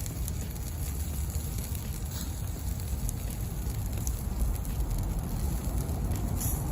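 Wood campfire burning, with a few faint crackles over a steady low rumble.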